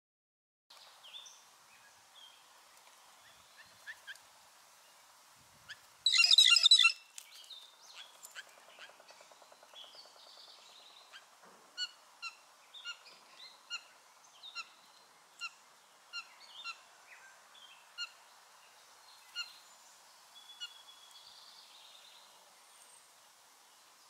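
Wild birds calling: one loud, harsh blue jay call lasting under a second about six seconds in, then a run of short, sharp call notes roughly once a second.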